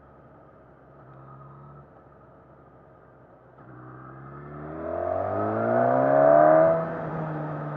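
Suzuki Katana (2019) inline-four engine under way, running low and quiet at first, then accelerating from about three and a half seconds in with a steadily rising pitch. It peaks loudest just past six seconds, then the pitch drops sharply and the engine settles to a steady run.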